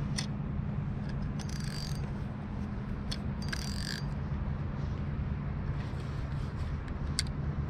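Fishing reel being cranked in two short bursts, its gears whirring, with a few sharp clicks, over a steady low rumble.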